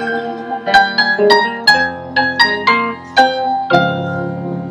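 Reggae band playing an instrumental gap between vocal lines: a stage keyboard plays a run of separate, quickly fading notes, then a held chord over the bass comes in about three-quarters of the way through.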